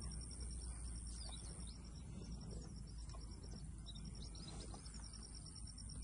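Pasture ambience: birds giving short chirps over a rapid, repeated high-pitched pulsing trill, with a steady low rumble of wind on the microphone.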